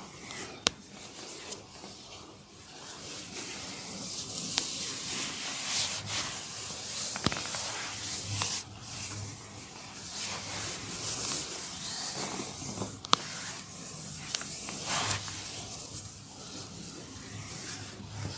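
Hands massaging a person's head and skin, a steady hissing rub of palms and fingers over hair and skin. A few sharp single clicks stand out, one every few seconds.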